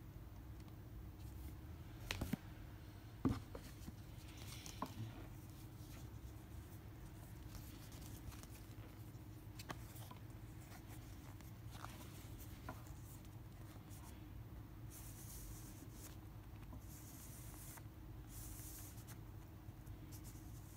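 Faint handling of printed card mailers: card and paper sliding and rustling as the folds are pulled open, with a few light clicks and taps, the loudest about three seconds in, over a low steady room hum.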